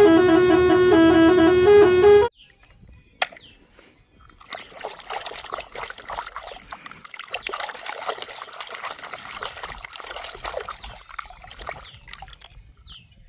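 A telolet-style musical horn plays a loud tune of stepping notes and cuts off suddenly about two seconds in. After a single click, water trickles and splashes for about eight seconds.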